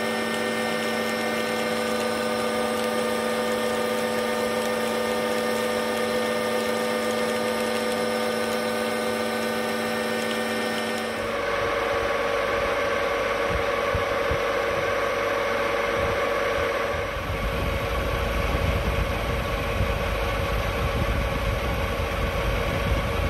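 Metal lathe running while a carbide insert turns a steel shaft, a steady machine hum made of several constant tones. The sound changes abruptly about halfway through, with different tones and more low rumble, and shifts again a few seconds later.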